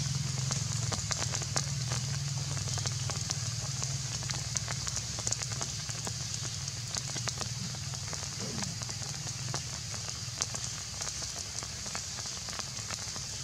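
Forest ambience: a steady high-pitched hiss with many scattered crackling clicks and a low hum underneath.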